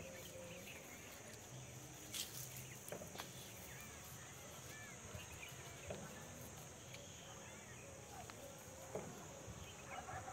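A curved knife shaving the bark at the top of a date palm trunk for sap tapping, giving a few soft scrapes and taps spaced a few seconds apart. Faint bird calls and a steady high-pitched drone sit behind it.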